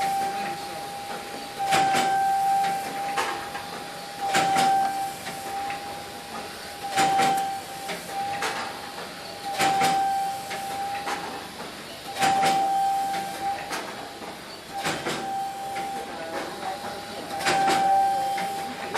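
Soap packaging and labelling machine running through its cycle: a steady high whine, with a short burst of clatter and hiss repeating regularly about every two and a half seconds.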